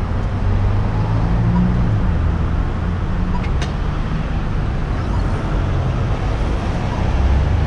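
Street traffic: a steady low engine rumble from cars in the lane, with one sharp click about three and a half seconds in.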